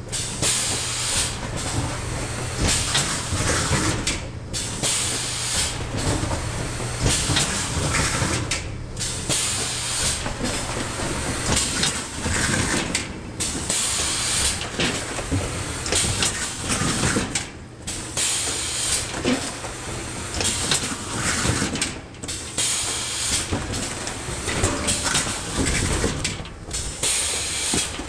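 Automatic case-forming and taping machine cycling: bursts of compressed-air hiss from its pneumatic cylinders and knocks from the mechanism over a steady motor hum. The pattern repeats about every four and a half seconds.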